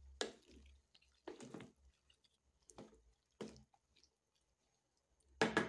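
Wooden spoon stirring a wet stew of maize, peas and potato chunks in a metal pot: about five short wet, squishing scrapes, the loudest near the end.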